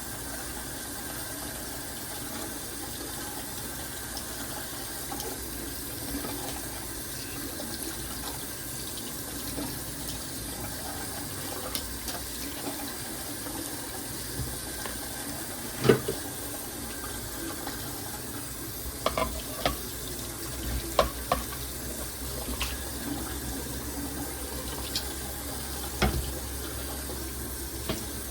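Tap running steadily into a sink while dishes are washed, with occasional knocks and clinks of dishes and containers. The loudest knock comes about halfway through, and a quick cluster follows a few seconds later.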